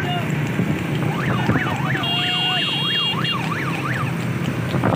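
A siren sounding in quick up-and-down sweeps, about three a second, starting about a second in and stopping near the end, over the steady rumble of a vehicle on the move.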